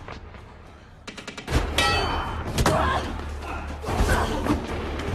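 Action-film fight sound effects. After a quiet second comes a quick run of clicks, then a heavy thud over a low rumble, followed at once by a hit with a metallic ring. More blows and thuds land through the rest.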